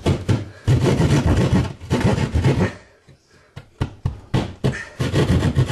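Small hand saw sawing back and forth through a wall to open a small inspection hole. There are two runs of quick, rasping strokes, each about two seconds long, with a pause of a few scattered ticks between them.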